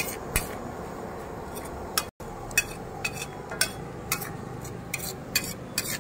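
Steel spatula scraping and clinking on a flat steel tawa as thick egg gravy is stirred and spread, in sharp irregular strokes about two a second. The sound cuts out for an instant about two seconds in.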